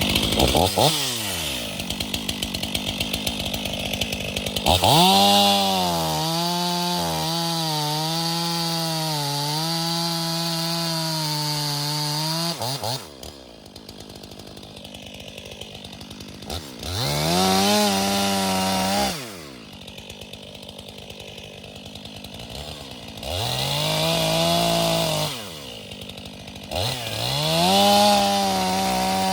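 Stihl 500i fuel-injected two-stroke chainsaw running. It runs unevenly for the first few seconds, holds steady at full throttle for about eight seconds, then drops to idle between three short bursts of throttle.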